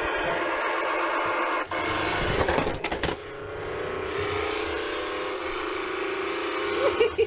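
Toy garbage truck's electronic sound chip playing a truck engine and machinery sound effect through its small speaker, triggered by pressing the button on its roof. The sound is steady, has a noisier stretch about two to three seconds in, and cuts off suddenly at the end.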